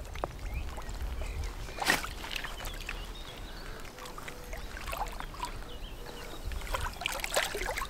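Pond water sloshing, with a few splashes and knocks, as a carp of about 9 kg is lowered into the water to be released. A single sharp knock comes about two seconds in and a cluster of splashes near the end, over a steady low rumble.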